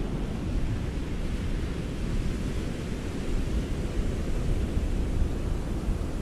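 Ocean surf on a beach: a steady, low wash of waves with no single crash standing out.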